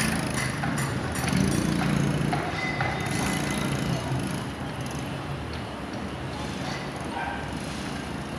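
Construction-site noise: a heavy machine's engine running, loudest about a second or two in and then easing off, over a general bed of site and traffic noise.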